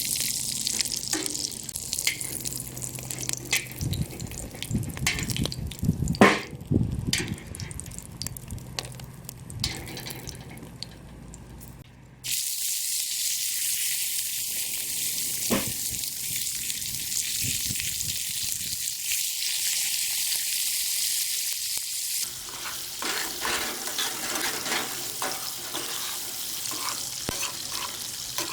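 Food frying in a pan, sizzling, while a utensil stirs and scrapes it, with a sharp knock against the pan about six seconds in. After a sudden cut about twelve seconds in, the sizzle is steady and bright.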